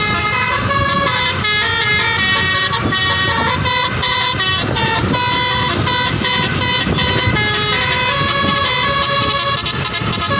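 Bus 'telolet' multi-tone air horn (Basuri type) playing a rapid stepping melody of horn notes, with the bus's engine and traffic rumbling underneath.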